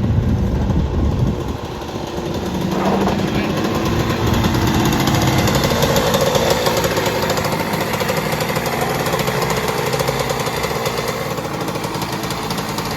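1997 Suzuki RM125's 125cc single-cylinder two-stroke engine running with a fast, even firing rhythm, its pitch shifting a little in the middle; the bike is running again after sitting two years and getting a new head gasket.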